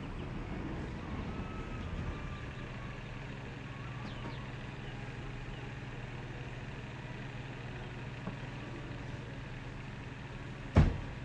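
A taxi's car engine idles with a steady low hum. Near the end a car door shuts with a single loud thump.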